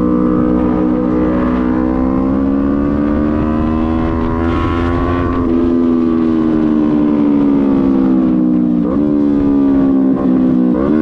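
Sport motorcycle engine heard from the rider's seat while cruising: its pitch climbs slowly for about five seconds, then eases back, with two brief dips in pitch near the end. A low wind rumble runs underneath.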